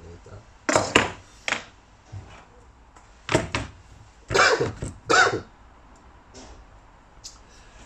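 Handling noises on a wooden workbench: a plastic tool case being picked up and opened, a handful of short knocks and clicks spaced out over several seconds.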